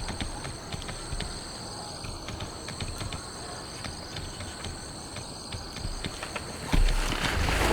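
A steady chorus of insects trilling in high, pulsing tones, with scattered taps of raindrops falling. Near the end a louder rushing noise sets in suddenly.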